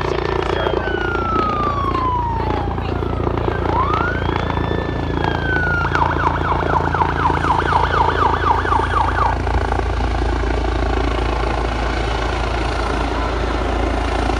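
Police helicopter flying low overhead, its rotor and engine making a steady drone. Over it a siren gives two slow rising-and-falling wails, then switches to a fast yelp for about three seconds near the middle.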